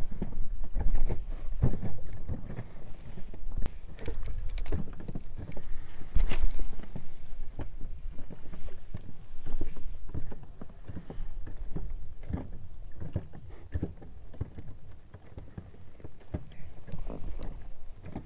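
Small boat on light chop: water lapping and knocking against the hull at irregular moments, mixed with handling knocks and wind rumbling on the microphone, and a brief hiss about six seconds in.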